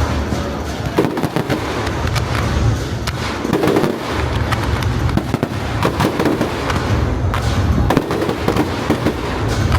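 Aerial fireworks display: a dense, continuous run of sharp bangs and crackles over deep, rolling booms.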